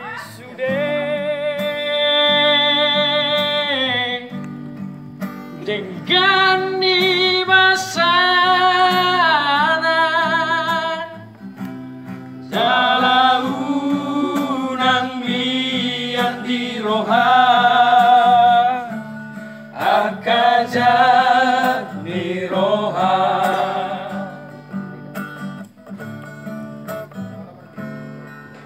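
A group of men singing a song together to a strummed acoustic guitar, in sung phrases a few seconds long with short breaks between them, growing softer near the end.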